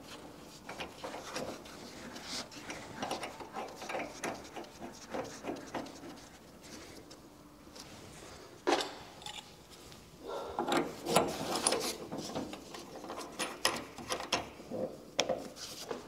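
Gloved hands threading brass valve fittings and copper pipe tails on hand tight: irregular light metal clicks, scrapes and rubbing, with one sharper click about nine seconds in and busier handling near the end.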